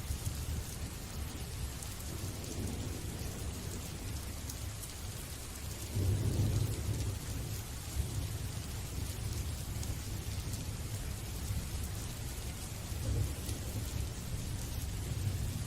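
Steady rain hissing, under a low continuous rumble of thunder that swells about six seconds in and again near the end.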